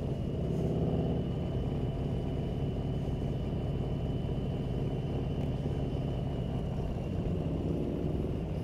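Motorcycle engine running steadily at cruising speed, a low rumble with wind and road noise, and slight changes in engine pitch near the start and near the end. A faint steady high whine sits over it.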